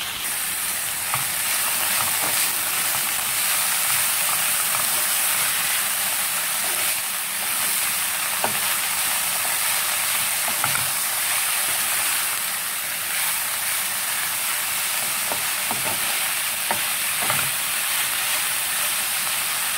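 Chopped cabbage sizzling steadily in a frying pan as it is stir-fried. Scattered light taps and scrapes come from the spatula stirring it against the pan.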